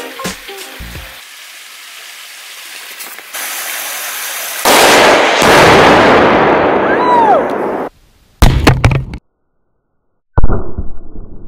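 Tannerite target detonated by a rifle shot: a sudden loud blast that rumbles and echoes on for about three seconds. Two more loud bursts follow, the last one starting very suddenly near the end.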